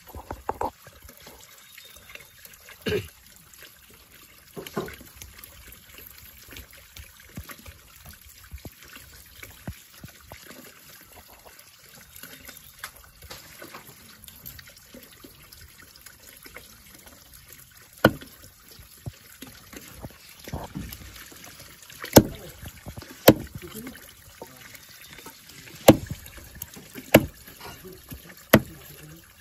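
Water running steadily from a pipe into a full pot, with sharp chops of a heavy knife cutting chicken on a wooden chopping block. A couple of chops come early and several in quick succession in the second half.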